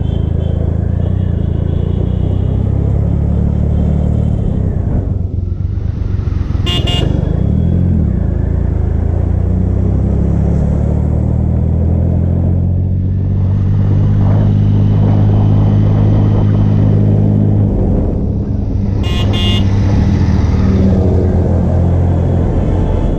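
A cruiser motorcycle's engine running under way in traffic, easing off and picking back up a few times. Two short vehicle horn toots, about seven seconds in and again about nineteen seconds in.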